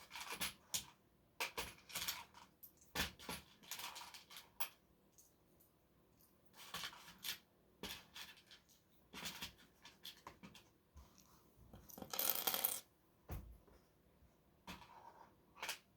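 Small plastic LEGO pieces clicking and clattering as they are picked through and handled, in short scattered bursts with pauses, and a longer rattle of pieces being rummaged about two-thirds of the way in.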